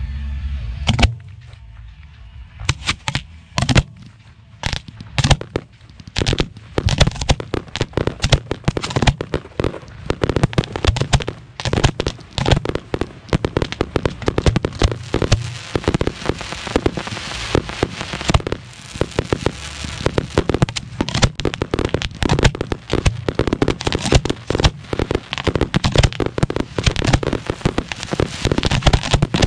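Professional 1.3G display firework shells firing and bursting. A few separate bangs at first, then from about six seconds in a dense, rapid barrage of bangs.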